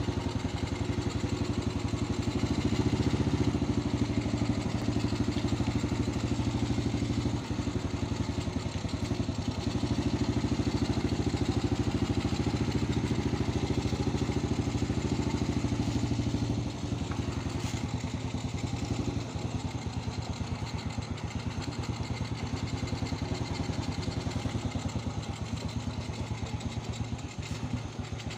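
Small single-cylinder engine of a 70cc step-through motorcycle idling steadily with the throttle untouched. It settles a little quieter about 17 seconds in.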